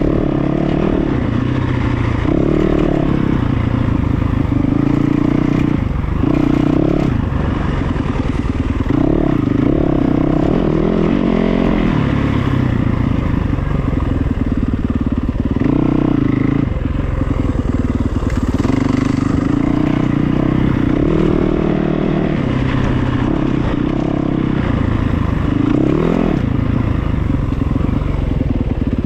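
A vehicle engine running steadily and revving up briefly several times, then settling back.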